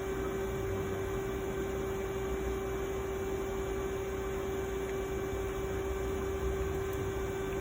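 Steady machine hum: one constant mid-pitched tone over a hiss and low rumble, with no change.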